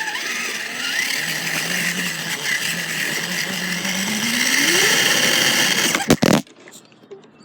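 Radio-controlled truck driving, heard up close from its bumper: a steady motor whine over rattling and ground noise. The whine rises in pitch about four seconds in as it speeds up, then the sound cuts off suddenly with a sharp knock about six seconds in.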